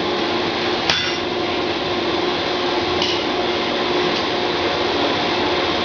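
Workshop machinery running with a steady hum and hiss and a constant tone, with a single sharp click about a second in.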